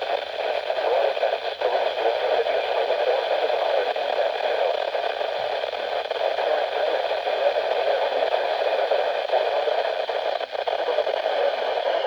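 Radio static: a steady, even hiss of noise from a radio receiver with no programme audio, unchanging throughout.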